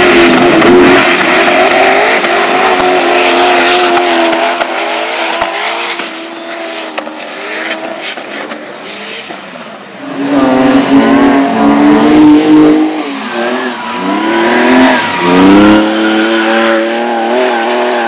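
Racing engines revving hard on a dirt track, their pitch rising and falling through gear changes and throttle lifts. The sound eases off for a few seconds, then a fresh bout of loud revving starts about ten seconds in.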